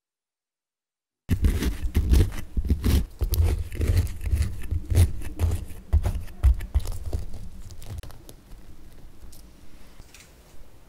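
Close handling sounds of hands holding a chocolate muffin and pushing an Oreo cookie into its crumbly top: dense crackling and crunching over low bumps. It starts abruptly about a second in and dies down near the end.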